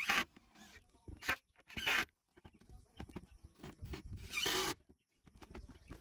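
Cordless drills driving screws into a plywood subfloor in several short bursts, the longest about four seconds in, with small clicks between them.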